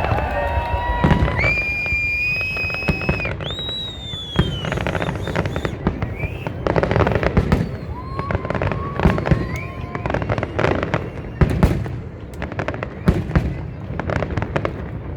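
Fireworks display: a dense run of bangs and crackling bursts, thickest in the second half, with a few drawn-out high whistling tones in the first few seconds.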